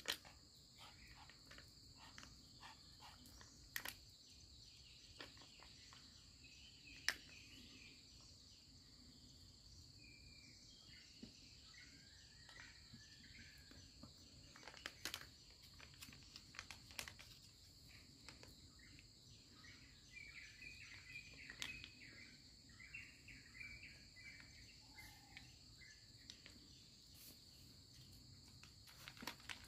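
Faint outdoor ambience: a steady high-pitched insect drone, with bird chirps now and then, and scattered short sharp clicks and taps.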